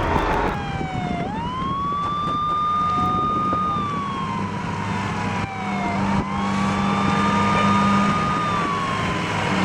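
Fire engine siren on a slow wail: it rises quickly to a high note, holds, then slides slowly down over several seconds, climbing again about a second in and about six seconds in.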